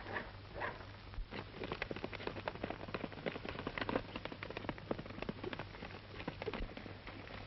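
Hoofbeats of a galloping horse, a fast, irregular patter of sharp clicks starting about a second in, over the steady hum and hiss of an old film soundtrack.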